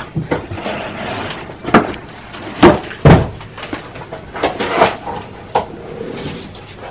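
Cardboard gift box being handled and opened: irregular knocks, thuds and cardboard rustling, loudest in two heavy thumps about half a second apart near the middle.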